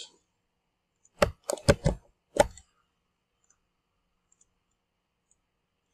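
A cluster of sharp clicks from a computer mouse, spread over about a second and a half.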